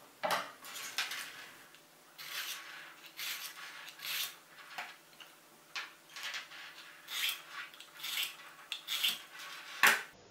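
Tungsten-alloy pocket knife sharpener drawn along a steel knife edge in repeated scraping strokes, about one a second, around ten in all. A sharp, loudest stroke comes just before the end.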